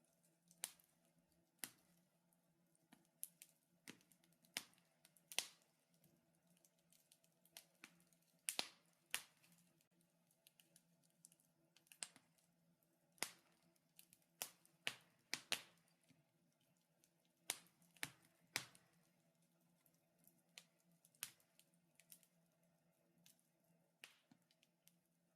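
Wood fire in a fireplace crackling: irregular sharp pops and snaps, a few every second or two, over a faint steady hum.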